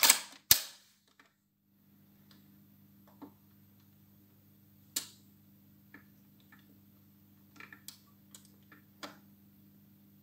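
1973 Zenith D-587 record changer being started: two sharp clicks of its control lever, then a steady low hum as it runs, with the automatic changer mechanism clicking and ticking several times as the tonearm lifts and swings out over the record.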